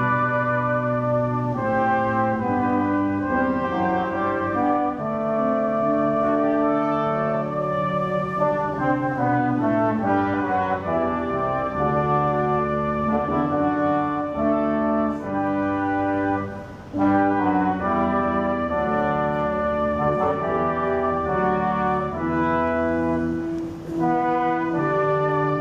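Brass ensemble (trumpets, trombones and horns) playing a solemn piece in held chords, with brief breaks between phrases.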